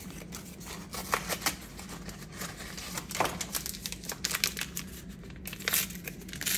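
Box and inner packet of instant chocolate pudding mix being torn open and handled by hand: irregular crinkling, rustling and tearing of paper and packaging.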